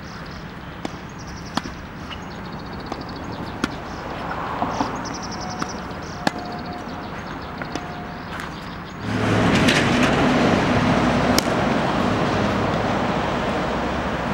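Tennis balls struck by rackets and bouncing on an outdoor court: sharp pops about once a second. About nine seconds in, a cut brings in louder, steady background noise with a low hum, under a few more hits.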